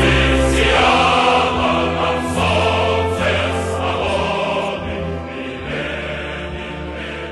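Background music with a choir singing over sustained chords and a held bass, gradually fading out.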